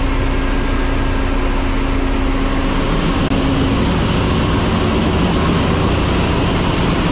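Loud, steady machinery noise of a tanker ship's engine room: running engines and auxiliary machinery making a constant low hum with a faint steady tone over it.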